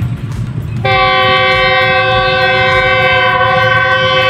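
Air horn of a Pakistan Railways GEU-40 diesel locomotive hauling a freight train, sounding one long, steady chord of several notes that starts suddenly about a second in. A low rumble runs underneath.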